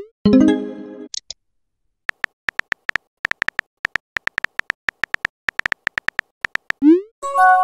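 Texting app sound effects: quick, irregular keyboard tap clicks as a message is typed out, with a short rising whoosh as it is sent near the end and a brief multi-note chime as it pops up. Another chime sounds just at the start, a moment after the previous message is sent.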